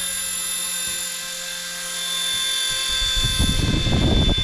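Mini Consuela electric RC helicopter hovering, with its motor and rotors giving a steady high whine. A rough low rumble joins about three seconds in and is the loudest part.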